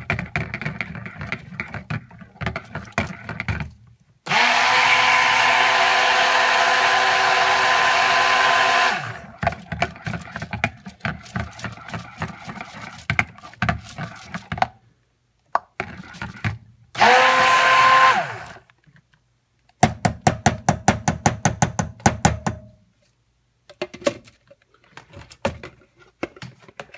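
Stick blender mixing additives into soap-making oils in two bursts: a long one of about five seconds early on and a shorter one past the middle. Between the bursts come knocking and rattling, with a run of rapid ticks near the end.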